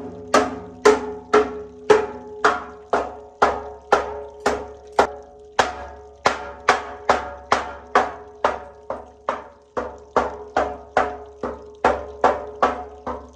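Steady hammer blows on a metal part, about two to three a second, each ringing with the same note.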